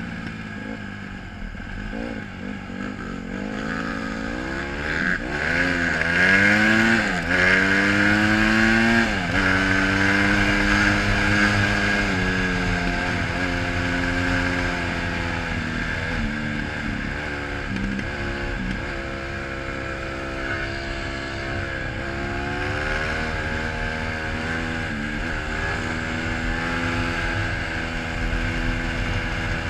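2008 Honda CRF150R's single-cylinder four-stroke engine under way: the revs climb and drop several times through gear changes in the first ten seconds, then it holds a steadier pace with small rises and dips in speed.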